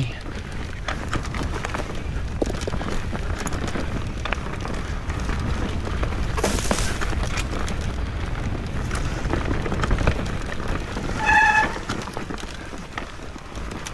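Mountain bike ridden over a rocky trail: a steady low rumble of tyres and wind with many small knocks and rattles from the bike hitting stones, a louder rush of noise about halfway, and a brief high tone near the end.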